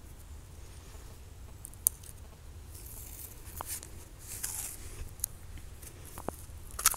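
Footsteps rustling in dry fallen leaves, mostly between about three and five seconds in. A few sharp clicks of handling noise, the loudest about two seconds in and near the end.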